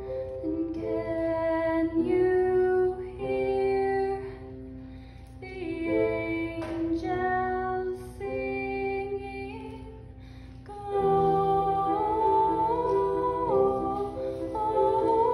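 A woman singing a slow song with piano accompaniment, growing louder about eleven seconds in.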